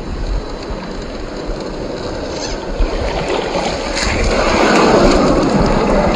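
Shallow stream water running. About four seconds in, a 1/10-scale RC crawler truck drops off the rock into the water and splashes through it, and the splashing grows louder. A few sharp clicks come just before, as the truck's tyres and chassis work down the rock.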